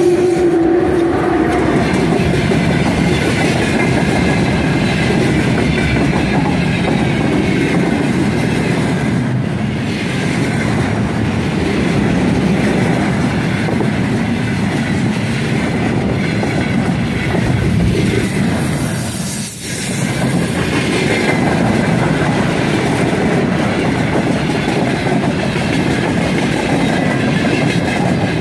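Long loaded freight train of container flatcars and boxcars rolling past close by: a loud, steady rumble and clatter of steel wheels on the rails, with a brief lull a little before two-thirds through.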